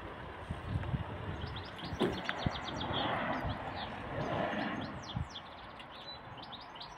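Small birds chirping and singing, with low wind buffeting on the microphone and a soft rushing swell about halfway through.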